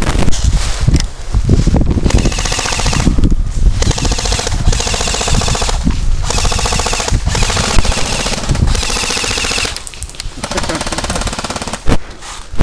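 Airsoft electric AK rifle fitted with a Guarder blowback kit firing on full-auto: a string of long bursts of rapid, even shots with brief pauses between them.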